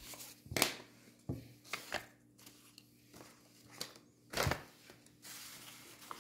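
Paper rustling as folded paper pieces are handled, with a few knocks on a wooden tabletop. The loudest knock is about four and a half seconds in.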